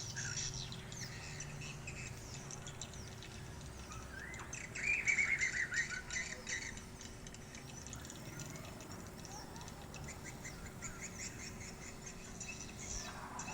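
Swiftlets twittering: many short, high chirps throughout, with a louder burst of chattering calls from about four and a half to six and a half seconds in.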